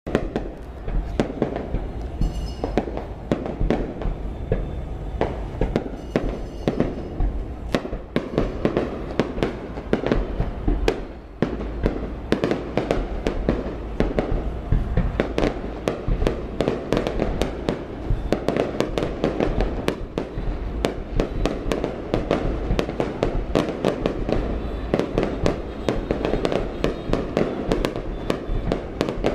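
Aerial fireworks display: a continuous barrage of bangs and crackles, several bursts a second, with shells going off close together throughout.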